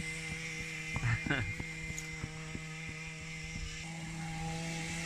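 Small vehicle engine running steadily with an even buzzing hum. A brief voice is heard about a second in.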